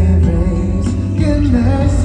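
Live performance of a pop ballad: a male singer's voice carrying the melody over full band accompaniment with heavy bass, played through a concert sound system.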